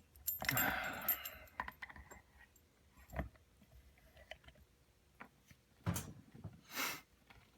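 Small metallic rattles and clicks of a padlock and lock-picking tools being handled as the tension wrench and pick go into the keyway, with a soft thump about three seconds in and two short rushes of noise near the end.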